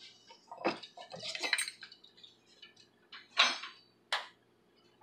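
Kitchenware being handled, a handful of clinks and knocks, the loudest about three and a half seconds in.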